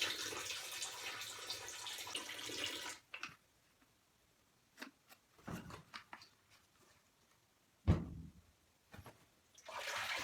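Water pouring and splashing into a washing machine tub for about three seconds, stopping abruptly, then starting again near the end. A few soft knocks and one sharp thump about eight seconds in.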